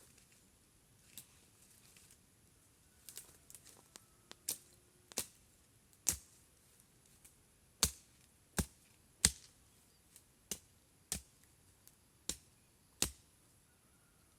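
A series of about a dozen sharp knocks, sparse at first and then coming roughly once a second from about four seconds in.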